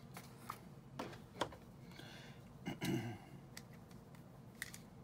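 Sheets of paper being handled and set down on a table: a few light taps and clicks, and a short rustle a couple of seconds in.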